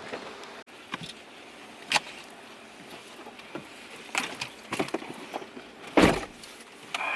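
Scattered clicks and knocks, with one heavier thump about six seconds in.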